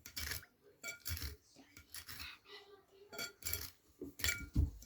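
A comb being worked through a doll's wet, matted synthetic hair in a bowl of hot water: a string of short, irregular scraping strokes with light clinks of hard plastic, the loudest near the end.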